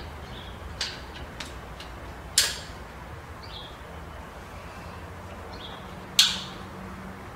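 Two shots from an Evanix K550 PCP revolver-action air rifle, about four seconds apart, each a sharp crack that dies away quickly. A few light mechanical clicks of the rifle's action come before the first shot.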